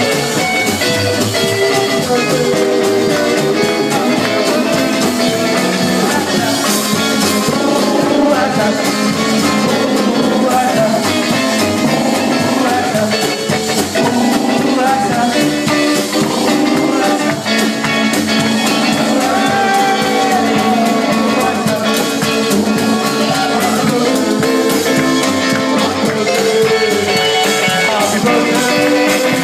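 Live rock-and-roll band playing: hollow-body electric guitar, upright double bass and drum kit.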